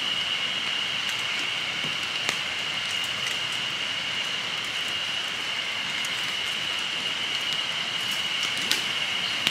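Steady outdoor hiss, like rain or running water, under a constant high thin whine, with a few faint sharp crackles: one about two seconds in and one near the end.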